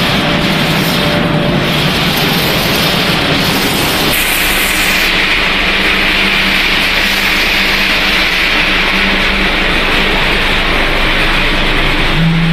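Machinery of a snack pellet production line running: a steady, loud machine noise with low hums under it. The noise shifts about four seconds in, and a deeper, stronger hum comes in near the end.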